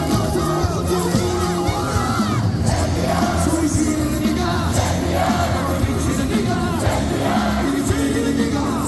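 Stadium crowd of thousands of baseball fans singing a cheer song in unison over loudspeaker backing music with a steady bass line, with scattered yells.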